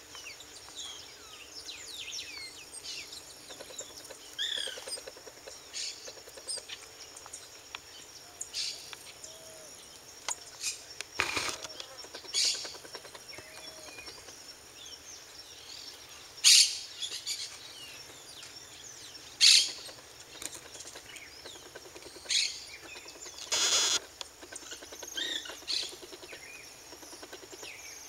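Songbirds chirping and calling throughout, with about five brief, louder hissing sounds scattered among them.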